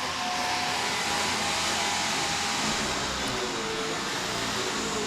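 A motor running steadily under a loud hiss, its pitch wavering near the end.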